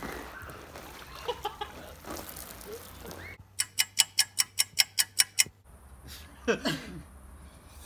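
A rapid run of about a dozen sharp, even ticks, about five a second, laid over a cut to black: an edited-in ticking sound effect marking a jump in time. Before it come faint background noise and voices, and after it a brief voice-like call.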